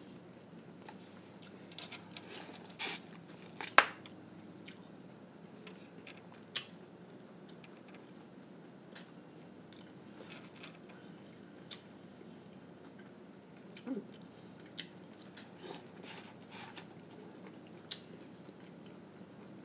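Close-up eating of buttery corn on the cob: irregular wet smacks and chewing sounds. The two loudest smacks come about four seconds in and again around six and a half seconds.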